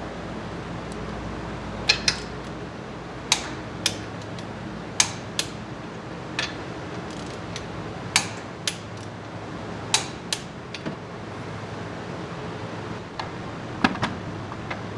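Sharp metallic clinks and clacks of hand tools and parts being handled, about a dozen at irregular intervals, some in quick pairs, over a steady low mechanical hum.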